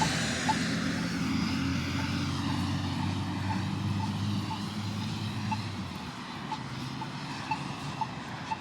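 Accessible pedestrian signal push button (Polara iNS) sounding its locator tone: short ticks repeating steadily, roughly every half second to a second. A passing vehicle's engine hum runs underneath and fades out about six seconds in.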